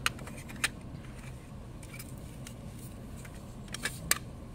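Clear acrylic eyelash boxes being handled: a few sharp plastic clicks and taps, two in the first second and two close together near the end, over a low steady hum.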